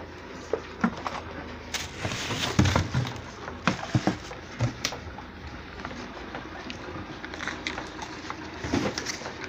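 Plastic wrapping crinkling and cardboard box rustling as a packaged chainsaw is lifted out and handled, with small knocks. The handling noise is busiest in the first half and thins out to occasional clicks later.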